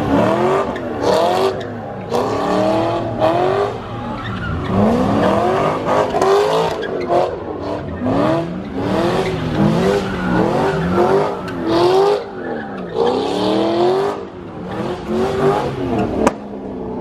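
A car doing donuts with its tyres spinning and squealing. The engine is revved up and down over and over, about every half second to a second. There is a sharp crack near the end.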